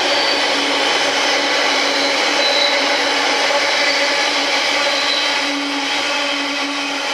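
Container wagons of a freight train rolling past on the rails: a steady rush of wheel-on-rail noise with faint steady whining tones over it, easing slightly near the end.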